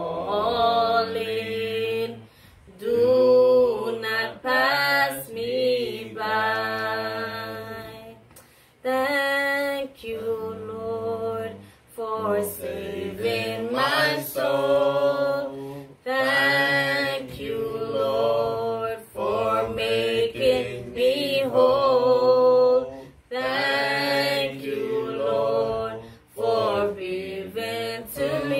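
A woman singing a hymn slowly, in long held phrases with short pauses for breath between them.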